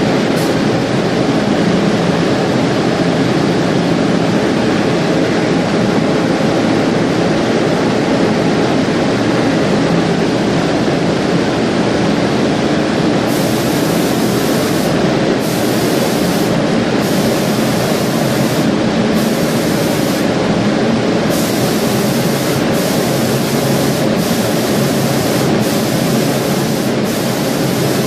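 Automatic marble spraying machine running: a loud, steady mechanical rush of the spray booth and roller conveyor, with a low hum under it.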